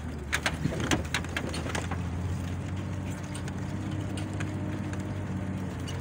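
Truck engine running steadily while driving, a low drone, with a few sharp knocks and rattles in the first two seconds.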